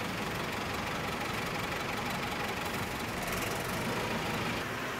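Aerial ladder truck's engine idling steadily.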